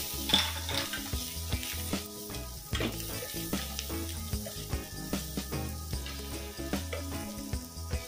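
Chopped garlic sizzling in melted butter in a metal saucepan, with a silicone spatula stirring and scraping against the pan in short knocks. Soft background music plays underneath.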